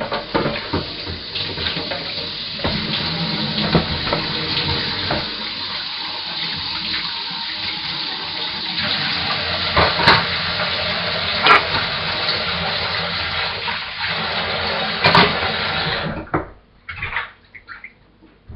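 Kitchen tap running steadily while a chopping board is rinsed under it, with a few knocks as it is handled; the water stops a couple of seconds before the end.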